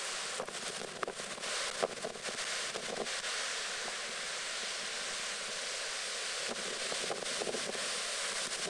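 Storm-surge sea washing over a harbour slipway: a steady rush of breaking surf, with wind buffeting the microphone now and then.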